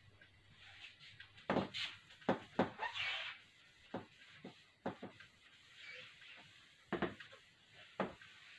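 A whiteboard being wiped with a hand-held duster: scrubbing swishes against the board, with a string of sharp knocks and taps as the board and duster bump.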